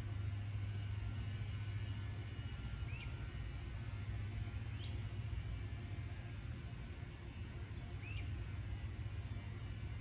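A steady low hum fills the background, with three faint, short bird chirps a couple of seconds apart.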